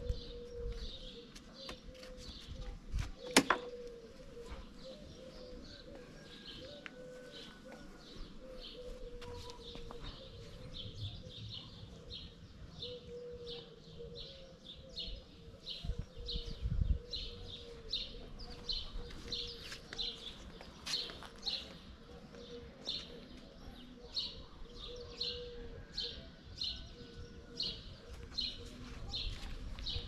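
Small birds chirping, short chirps repeating about once or twice a second, over a faint steady hum. A single sharp click sounds about three seconds in.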